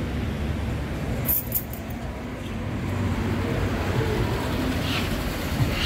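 Street traffic ambience: a steady low rumble of passing vehicles, with a brief high metallic clinking about a second and a half in.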